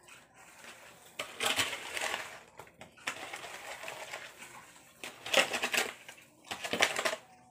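Shovel scraping and scooping into a pile of soil and rubble, a series of gritty strokes with the two loudest near the end.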